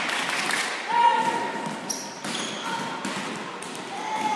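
A volleyball being played in a rally: a few sharp slaps of hands and forearms on the ball, echoing in a large sports hall, with players calling out between the hits.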